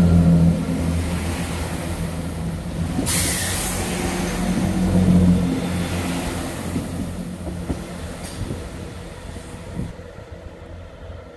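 Chiltern Railways diesel multiple unit drawing away past the platform, its diesel engines running under power with a low steady drone that swells about five seconds in and then fades as the train recedes. A short hiss about three seconds in.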